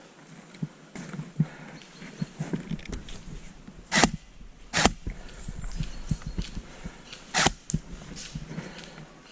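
Three sharp shots from airsoft guns: two about a second apart a few seconds in, and one more near the end. Underneath, light crackling and rustling.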